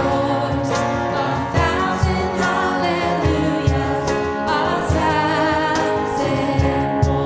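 Contemporary worship music: a band with singing over a steady drum beat.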